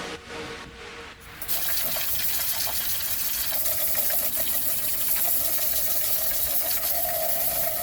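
A steady spray of water hissing, starting abruptly about a second and a half in.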